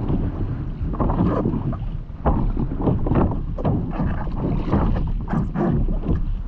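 Stand-up paddleboard paddling: the paddle blade dipping and pulling through the water, with repeated irregular splashes and water sloshing around the board. Wind buffets the microphone throughout as a low rumble.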